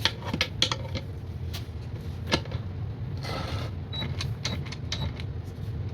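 Cordless ratchet wrench and its socket being handled: scattered sharp metal clicks and clacks, with a brief half-second rush of noise about three seconds in, over a steady low hum.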